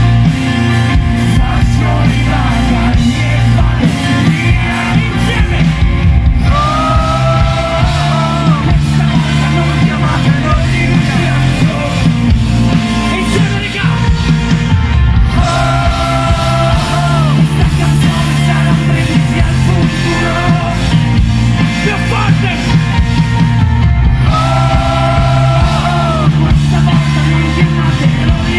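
Italian indie rock band playing live and loud: electric guitars, bass and drums with a singer, heard from near the stage. A long held high note comes back three times, about eight seconds apart.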